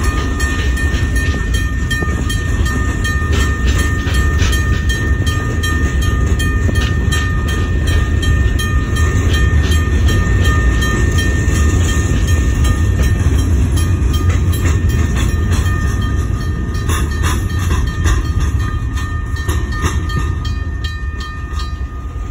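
Freight train's hopper cars rolling through a grade crossing with a steady heavy wheel rumble and clatter, while the crossing's US&S teardrop bell rings steadily. The rumble fades over the last couple of seconds as the end of the train passes.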